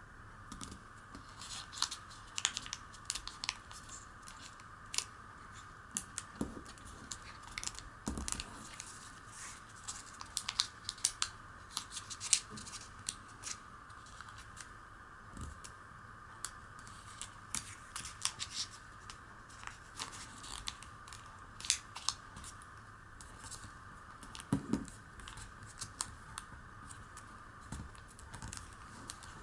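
Origami paper being folded and creased by hand: irregular crisp crackles and rustles as the fingers press and smooth the folds, over a faint steady hiss.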